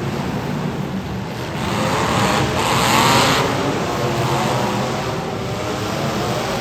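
Demolition derby cars' engines running, with one revving up and rising in pitch about two seconds in.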